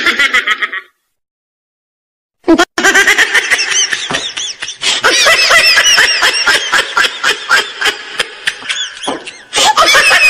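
High-pitched laughter, a quick run of repeated laughs. It cuts off about a second in, is silent for about a second and a half, then starts again and carries on.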